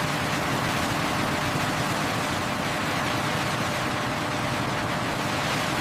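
Steady, even hiss of running machinery with a faint low hum, unchanging throughout.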